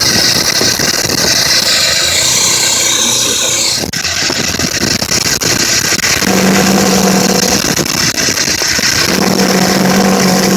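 Mazda 12A two-rotor rotary engine being revved by hand with the carburettor's air-filter cover off, making a weird purring noise, held steady twice in the second half. The engine has been stalling and running jittery at low revs, and it doesn't sound healthy at all.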